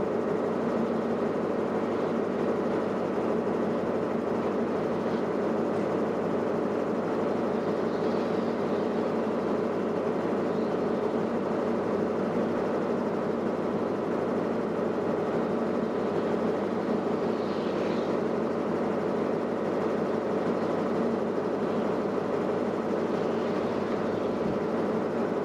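Diesel train engine idling steadily: a constant even hum with no rhythm.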